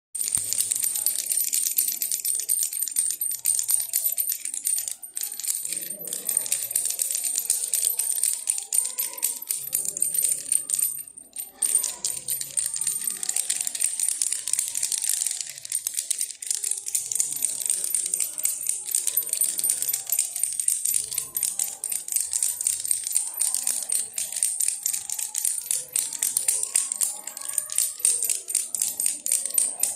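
Baby rattle shaken continuously, a fast dense clatter of small rattling pieces with a bright high ringing over it. The shaking stops briefly about eleven seconds in.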